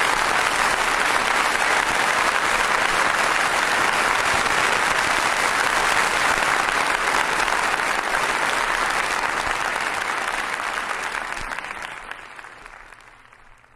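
Theatre audience applauding steadily after a comic monologue's punchline; the applause fades out over the last few seconds.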